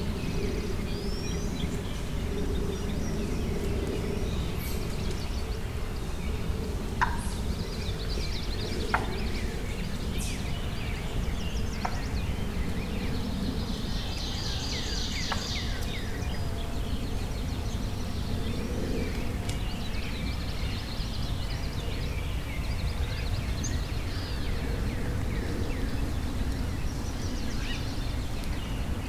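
A wild turkey gobbling in the distance, with songbirds chirping over steady outdoor background noise.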